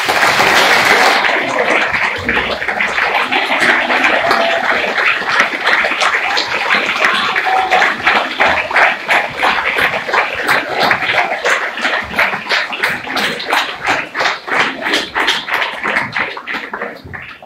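Audience applause that turns into steady clapping in time, about two to three claps a second, growing fainter near the end.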